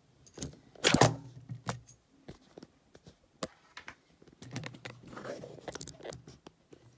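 Handling noise on a wooden tabletop: scattered clicks and small knocks, a louder knock about a second in, and a stretch of scraping and rustling later on.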